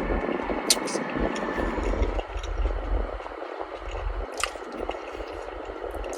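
Someone biting and chewing a sugar-coated Korean corn dog, with a few sharp crunchy clicks over a steady low rumble.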